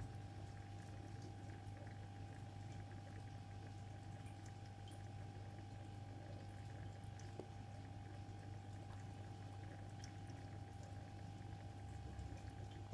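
Aquarium pump running: a steady low hum with a thin higher tone over it, and faint water bubbling and scattered small ticks.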